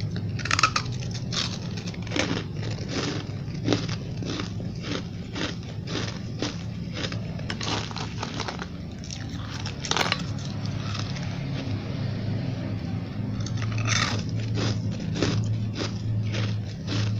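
Close-up biting and chewing of frosty, snow-like ice chunks: a steady run of sharp crunches, about two a second, a few louder bites among them. A low steady hum runs underneath.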